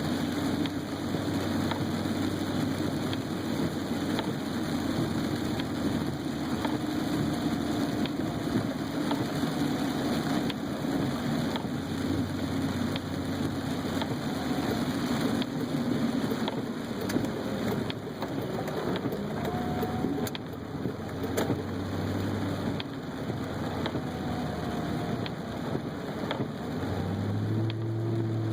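Car driving in heavy rain, heard from inside the cabin: steady engine and road noise with rain on the car's body and faint scattered taps.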